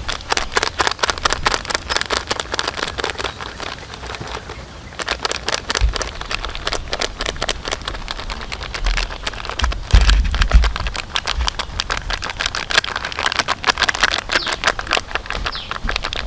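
Plastic packet crinkling and crackling in the hands as crispy-fry flour is shaken out of it into an aluminium pot, a dense irregular crackle, with a few low thumps about 6 and 10 seconds in.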